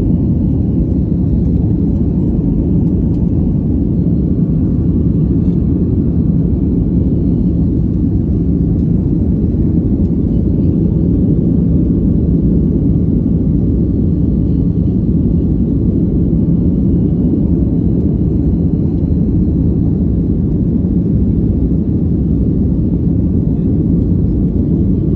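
Jet airliner cabin noise during take-off and initial climb: the engines at high thrust heard from a window seat as a loud, steady, low rumble, with faint steady high tones above it.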